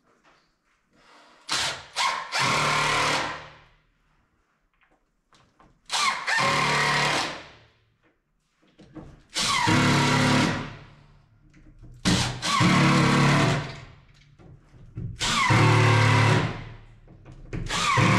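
Cordless drill driving screws into plywood: about six bursts of a second or two each, every one trailing off as the drill stops, with short pauses between.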